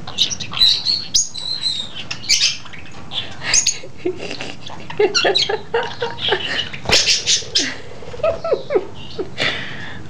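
A pet budgerigar chattering and warbling close up: a fast run of short chirps and clicks, with buzzy, speech-like passages from about halfway through.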